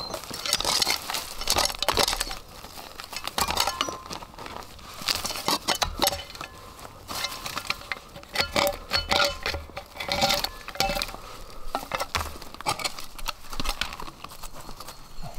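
Small metal shovel digging into stony, leaf-covered forest soil: repeated scrapes and crunches, with sharp clinks of the blade striking stones.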